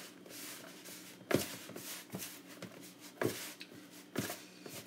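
Hands kneading soft flour dough in a plastic tub: rubbing and squishing, with four soft knocks about a second apart as the dough is pushed against the tub.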